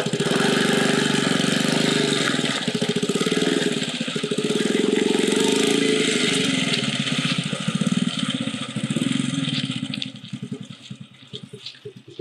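Small motorcycle engine running under way, then dropping back to a slower idle over the last two seconds, its separate firing pulses audible.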